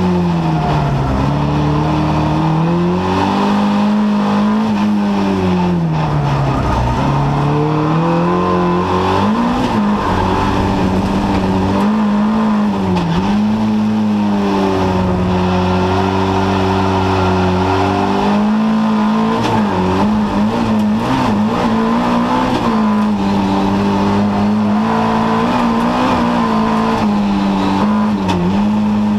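Folk-race car's engine heard from inside the cockpit, held at high revs and dropping and climbing again several times as the driver lifts off and changes gear through the corners, over a steady rush of tyre and gravel noise.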